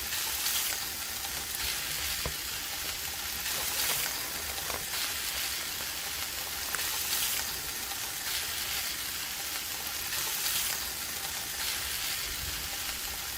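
Food sizzling on a charcoal barbecue grill: a steady hiss with light crackling and a few brief swells.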